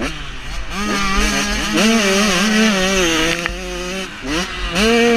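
Motocross bike engine heard close up from the rider's onboard camera. It revs up, holds steady under throttle with small wavers, drops off about four seconds in, then revs up again near the end.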